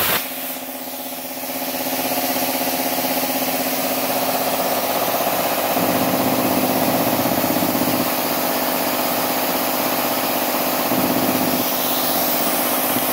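MultiPro Expert twin-cylinder piston air compressor running steadily, its motor and pump holding an even hum while it pumps air into the tank for a plasma cutter. A plasma cutting arc's hiss cuts off right at the start.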